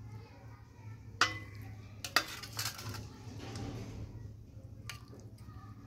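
Metal serving spoon clinking and scraping against a stainless steel serving dish: a few sharp clinks, the loudest about two seconds in, followed by a brief scraping rattle, over a low steady hum.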